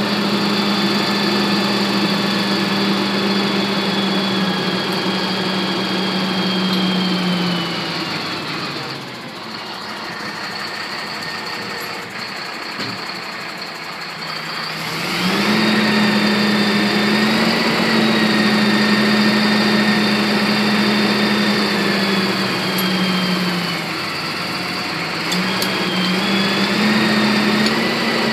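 Mobile crane's engine running at raised revs. About 8 seconds in it drops down to idle, then revs back up about 15 seconds in. It dips briefly again near 24 seconds and rises again.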